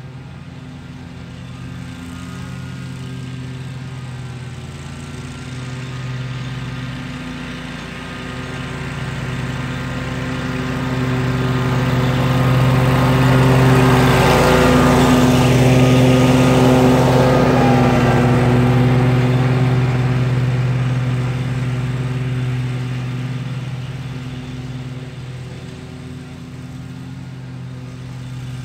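Gravely Pro-Stance 36-inch stand-on mower running steadily while mowing grass. It grows louder as it comes close about halfway through, then fades as it moves away.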